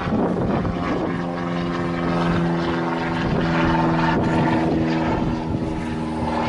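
Propeller aircraft engine droning overhead: a steady, even tone that comes in about a second in, heard over gusting wind on the microphone.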